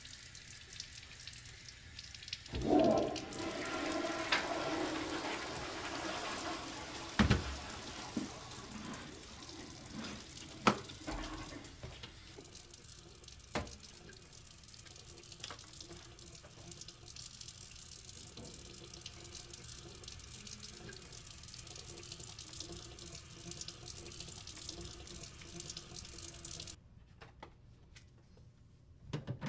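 Water running from a faucet into a restroom sink basin, a steady rush of water that starts strongly a couple of seconds in. A few sharp clicks or knocks sound over it. The water stops abruptly near the end.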